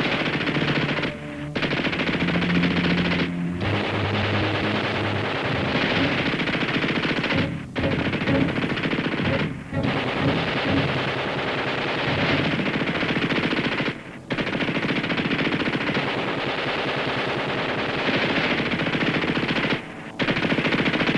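Sustained automatic gunfire from submachine guns in a firefight: long rapid bursts that run into one another, broken by about six brief pauses.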